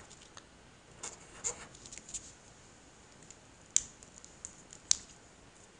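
Felt-tip marker faintly scratching on paper as two small circles are drawn, followed by two sharp clicks about a second apart.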